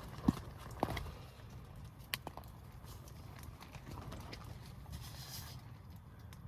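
Low steady wind rumble with a few sharp clicks and knocks, two close together about a second in and two more near the two-second mark, and a brief hiss near the end.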